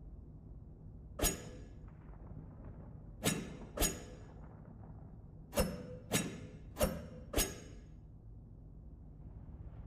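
Survival knife making sharp metallic clinks, each with a brief ring, seven in all: one about a second in, a quick pair near three and a half seconds, then four in steady succession between five and a half and seven and a half seconds.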